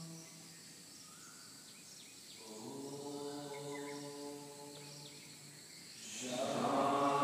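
Voices chanting a mantra together on one long, steady held note. A chant dies away at the start, a softer one begins a few seconds in, and a louder one swells in near the end.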